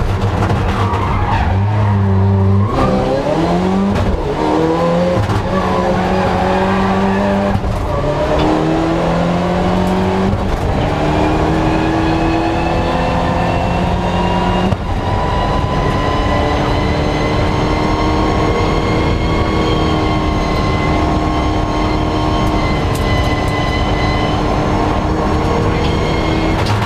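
Rally car engine heard from inside the cabin, held at steady revs and then, about two and a half seconds in, pulling away hard. It accelerates through several gears, the pitch climbing and dropping back at each upshift, then settles to a steadier fast run.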